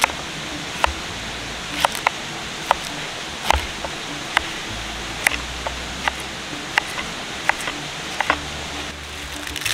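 Knife slicing through zucchini and yellow squash on a wooden board, each cut ending in a sharp knock of the blade on the wood, a dozen or so cuts about a second apart, over a steady hiss.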